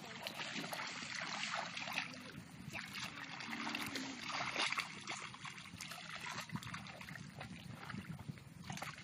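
Shallow muddy water splashing and sloshing irregularly as several children wade through it and rummage with their hands.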